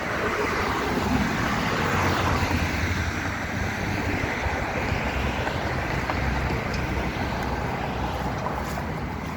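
Steady rushing outdoor noise with a low rumble underneath. It swells about two seconds in and eases off toward the end.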